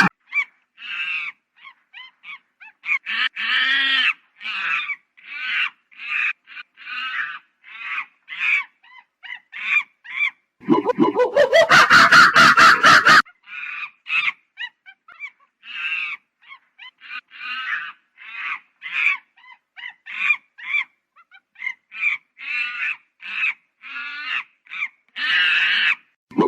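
Monkey calling: a long string of short, high, repeated calls, with one louder call lasting about two seconds near the middle that rises in pitch from low.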